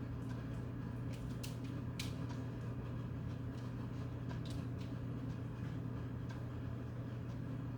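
Steady low household hum with a few faint, light clicks and taps.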